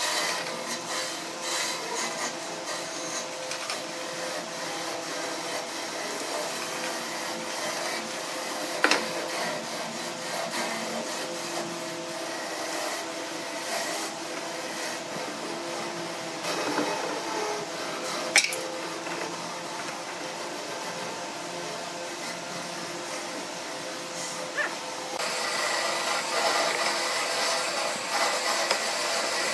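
Sandpaper rubbed by hand back and forth over carved wood: a continuous scratchy rasping, with a couple of sharp knocks, getting brighter near the end.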